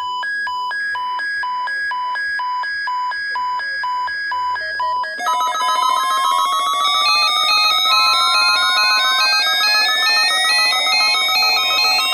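Electronic alert tones: a fast, even beeping that alternates between two pitches. About five seconds in, a denser synthesized sound takes over, with one tone sweeping steadily upward.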